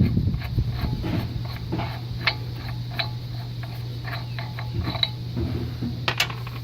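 Hand ratchet clicking in irregular strokes as it turns the loosened front axle nut off the axle, over a steady low hum. A sharper metallic click stands out near the end.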